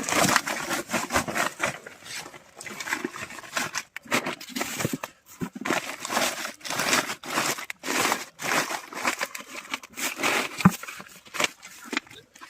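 Pigs eating wet feed from a trough: a dense, irregular run of chomping, smacking and slurping noises.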